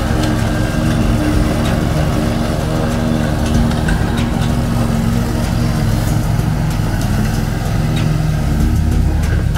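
Zero-turn mower's two-cylinder Kohler engine running steadily under load while the mower cuts through thick grass and brush, with a few short sharp ticks.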